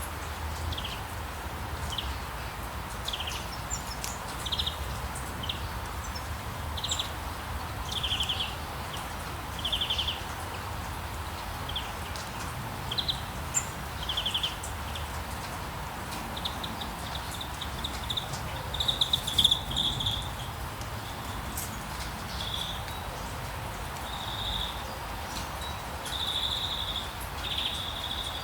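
Small birds chirping, short high calls about once a second, turning into longer trills in the second half, over a steady soft hiss.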